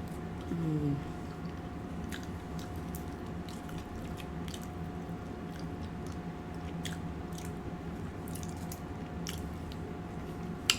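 A person chewing food close to the microphone, with scattered wet mouth clicks, and a short falling hum about half a second in. A steady faint hum runs underneath.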